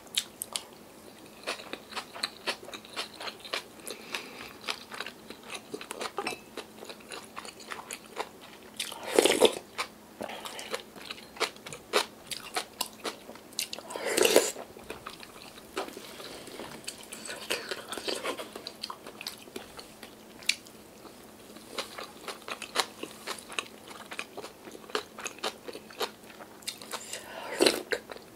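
A person chewing and crunching mouthfuls of yeolmu kimchi bibimbap, with many small mouth and utensil clicks. There are louder moments about nine seconds in, about fourteen seconds in, and near the end.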